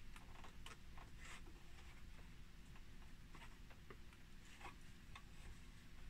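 Faint, scattered small clicks and rustles of fingers pressing a ribbon-cable connector into its socket, over a low room hum.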